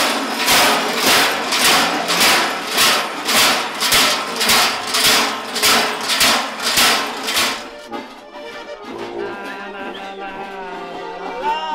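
Large bells strapped to the backs of Klaubauf (Krampus) costumes clanging in a steady rhythm, about two strokes a second, as the wearers walk. The clanging stops about eight seconds in, and music with singing follows.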